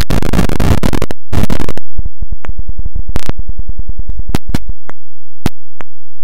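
Harshly distorted, clipped glitch audio: a dense noisy burst for the first second or so, then a rapid, even stutter of loud clicks, thinning to a few separate clicks near the end.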